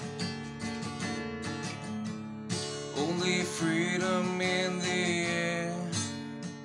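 Acoustic guitar strummed in a steady rhythm, with a wordless sung note held over it from about three seconds in.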